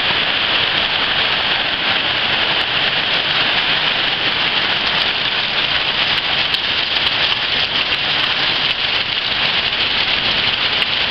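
Torrential rain falling steadily, with water from a roof gutter pouring and splashing into a rain barrel.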